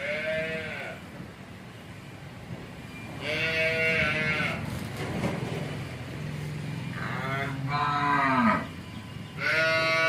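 Farm animals calling four times, each call lasting about a second; the third is longer and drops in pitch at its end, and the last is still going at the end.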